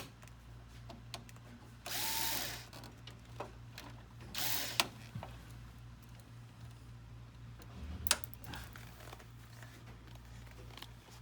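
Cordless drill-driver spinning in two short bursts, driving in a screw, the motor whine rising and falling in each; a sharp click follows the second burst, and another comes later.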